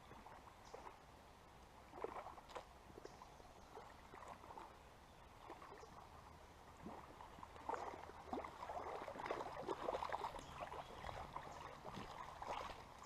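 Water splashing and sloshing as a hooked smallmouth bass is fought and landed in a creek: scattered splashes at first, growing busier and louder over the last five seconds or so.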